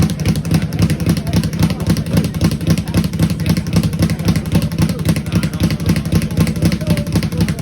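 Speed bag being hit in a fast, steady rhythm, a rapid run of sharp rebounding thumps at about five or six a second.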